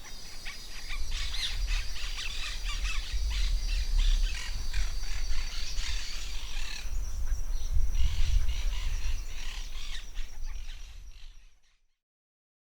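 Forest birds chirping and calling in quick, overlapping short notes over a steady thin high-pitched tone and a low rumble, then fading out to silence near the end.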